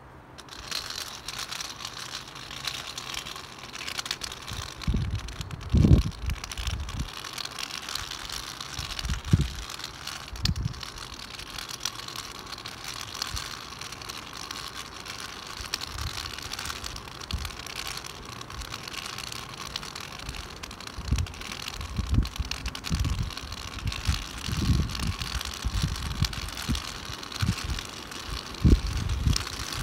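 Steady hiss of rain on a wet street, with gusts of wind buffeting the microphone now and then, most often in the second half.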